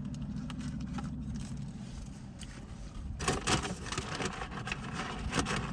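Crinkling and rustling of paper food wrapping being handled, starting about three seconds in, over a steady low hum.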